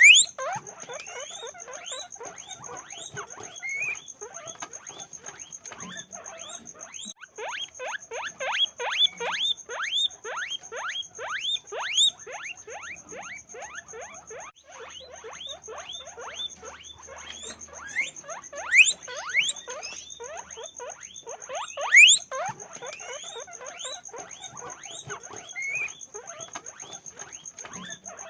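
Many guinea pigs squeaking continuously: a dense chorus of short, rising whistle-like squeaks, several a second and overlapping, with a few louder ones near the start and about two-thirds of the way in.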